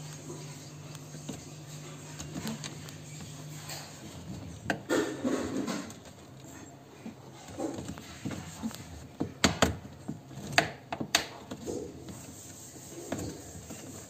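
Corrugated plastic washing-machine drain hose rubbing and creaking as it is gripped and pushed onto the outlet pipe, with a few sharp knocks in the second half.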